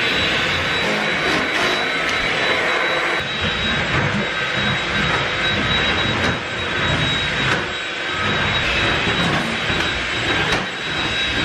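Stick vacuum cleaner running: a loud, steady rush of air with a constant high motor whine, swelling and dipping slightly as it is worked over the floor.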